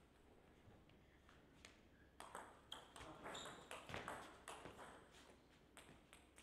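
Celluloid-type table tennis ball struck back and forth in a rally: a quick run of sharp ticks from paddle hits and table bounces, densest through the middle and thinning toward the end.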